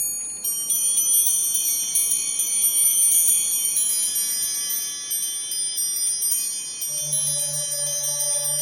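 High, bell-like chimes, many ringing notes sounding over one another. About seven seconds in, a low pulsing note and some middle notes join in.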